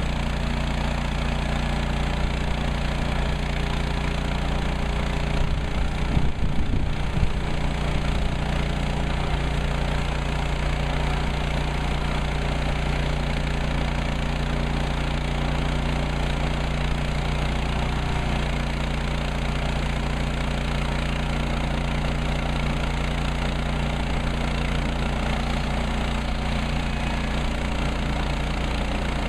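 Woodland Mills HM130 Max portable sawmill's gas engine running at a steady speed, with a short burst of irregular knocks about six seconds in.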